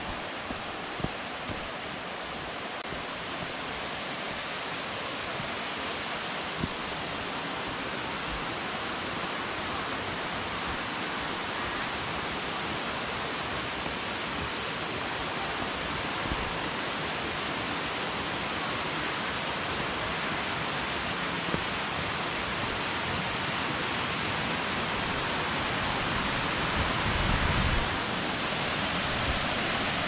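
Kuang Si Falls' cascades: a steady rush of falling water that grows gradually louder.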